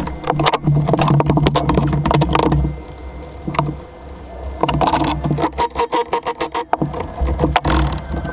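Clanks, rattles and scrapes of a knobby tire and wheel being handled and fitted onto a side-by-side's front hub, in two busy stretches with a quieter spell between, over a steady low hum.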